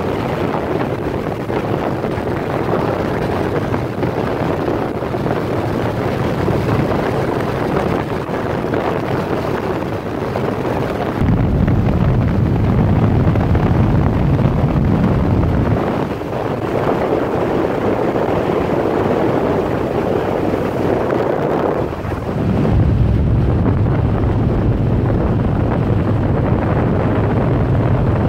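Motorcycle riding along at road speed: wind rushing over the microphone over the sound of the engine. The noise gets louder and deeper from about eleven to sixteen seconds in, and again from about twenty-three seconds on.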